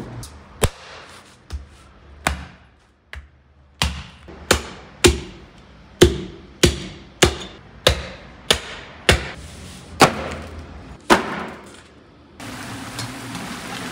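Lamb carcass being chopped with a butcher's blade: a long run of sharp chops about twice a second, each with a short ring, through meat and bone. A steady hiss takes over near the end.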